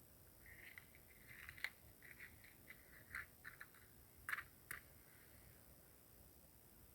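Faint rustling and scraping with several sharp clicks, starting about half a second in and dying away after about five seconds.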